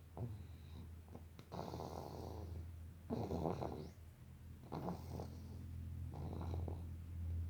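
Snoring in sleep: rasping noisy breaths, one about every one and a half seconds, over a steady low hum.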